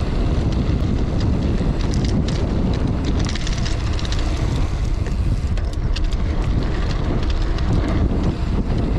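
Wind rushing over the microphone of a gravel bike coasting fast downhill on a dirt road. Its 650b × 2.1 Terravail Rutland tyres crunch over loose dirt, with many scattered small clicks and rattles.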